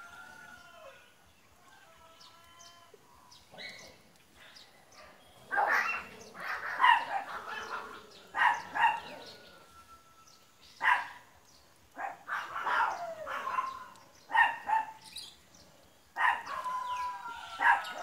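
A dog barking in loud short calls, one every second or two, from about five seconds in. Before that come a few fainter drawn-out calls that fall in pitch.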